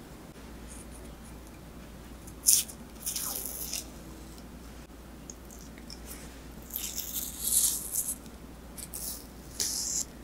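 A knife peeling the skin off a steamed sweet potato on a wooden cutting board: several short bursts of soft scraping and tearing, with a sharp knock about two and a half seconds in.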